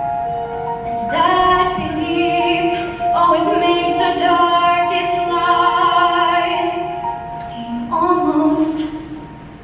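Women's choir singing: a held chord at first, then the voices come in louder with words about a second in, singing in phrases, and the sound tails off near the end.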